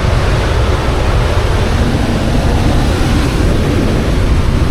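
Strong wind buffeting the microphone in a steady, loud rumble, with ocean surf rushing behind it.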